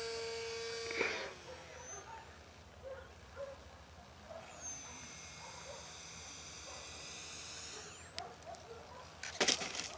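Electric motor and propeller of a foam RC plane (Extra 300) running at a steady pitch, then cutting off about a second in as the throttle comes off. After a quieter stretch, a high-pitched whine comes in at about four and a half seconds and stops near eight seconds with a brief upward glide. A couple of loud short bursts follow near the end.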